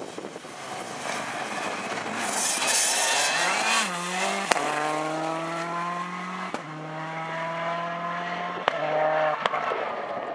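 Rally car at full throttle on a stage. First comes a rush of tyre and road noise as it passes. Then its engine note pulls away, broken by four sharp cracks at the gear changes.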